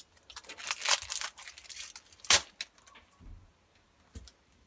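A trading-card booster pack's wrapper being torn open and crinkled. There is a run of crackly rustling in the first second and a half, a sharp crackle a little after two seconds, then a few faint rustles.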